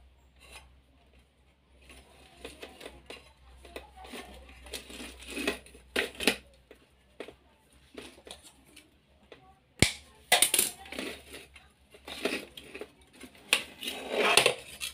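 Irregular clicks, rustles and light clatters of hands handling wires inside an opened battery charger and shifting its metal chassis, with one sharp click about ten seconds in.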